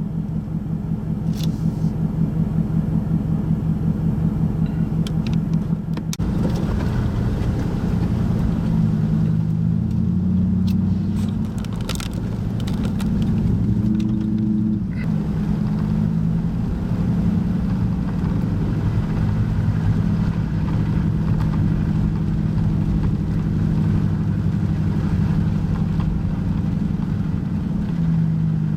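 Car driving, with a steady low engine and road drone that flutters rhythmically in the first few seconds; a few faint clicks now and then.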